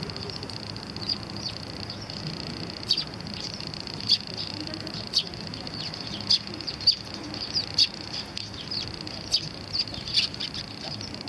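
Olympus Stylus TG-2 Tough camera's autofocus mechanism clicking loudly and irregularly, about one to two sharp high clicks a second: a faulty AF drive noise, loud enough to stand out over the surroundings.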